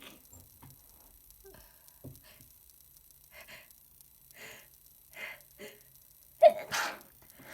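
A sick person sneezing: a few short gasping breaths, then one loud sneeze about six and a half seconds in.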